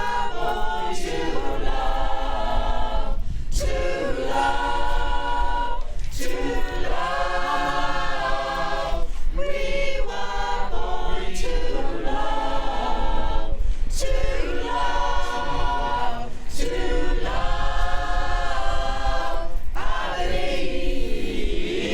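Mixed choir singing a cappella in several parts, sustained phrases of a few seconds each with short breaks for breath between them.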